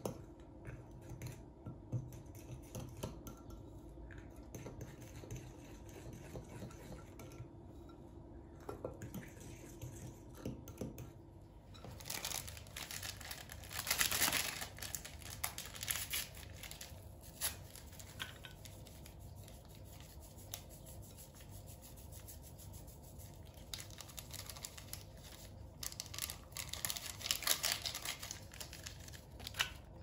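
A metal spoon stirring and scraping cake batter of flour, eggs and mashed banana in a glass bowl, with many small scrapes and clicks. There are two louder, hissing stretches, one a little before halfway and one near the end.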